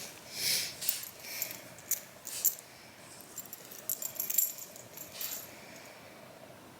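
A miniature schnauzer moving about, her collar tags jingling off and on for the first five seconds or so, then going still.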